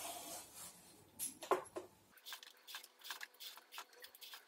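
Vegetable peeler scraping the skin off a bottle gourd, faint short scrapes repeating several times a second.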